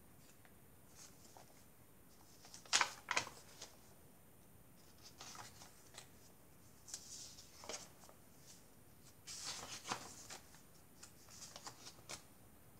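Paper handling: journal pages being turned and paper journaling cards slid in and out of pockets, giving scattered soft rustles and taps. The loudest is a pair of quick rustles about three seconds in.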